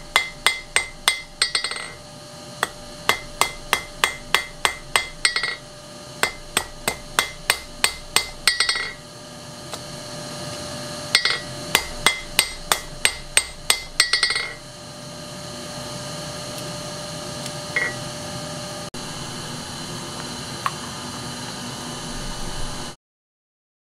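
Hand hammer striking red-hot steel on an anvil while forging a carving chisel. The blows come in four quick runs of about three a second, each with a bright metallic ring. After that a steady hum remains with only one or two light knocks, and the sound cuts off abruptly near the end.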